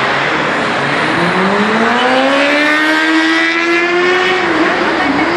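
A motor vehicle's engine accelerating, its pitch rising steadily for about three seconds, then holding with a brief dip near the end, over dense street traffic noise.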